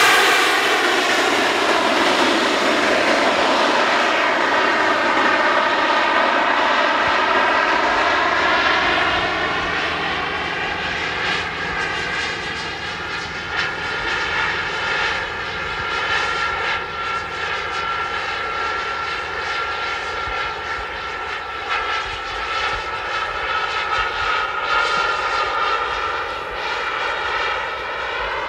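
Four JetsMunt M166 model turbine engines on a 1/13-scale Airbus A380 running in flight. The jet whine drops in pitch just after the aircraft passes, then settles into a steady, slowly fading whine as it flies away.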